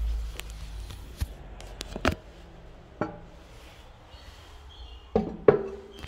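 Ceramic toilet cistern lid being handled, lifted off and set down: a few separate knocks, then a louder pair of clunks about five seconds in, the second with a brief porcelain ring.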